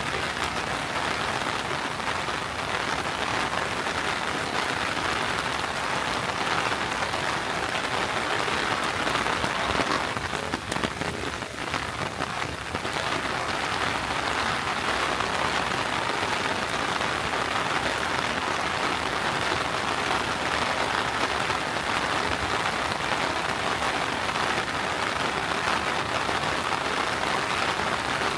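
Rain falling steadily in a dense, even patter, with a short dip and change in the sound about eleven seconds in.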